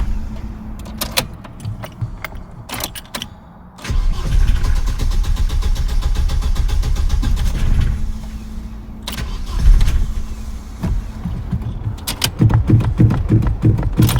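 A car engine being cranked over by its starter in repeated attempts, with quieter stretches and a few clicks between them. The engine struggles to catch and keeps stalling.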